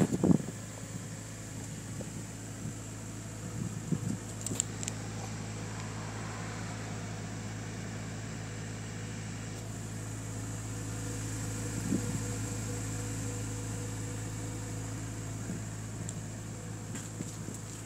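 Honda B18C5 1.8-litre four-cylinder engine of an Integra Type R idling steadily, heard close at its exhaust tip.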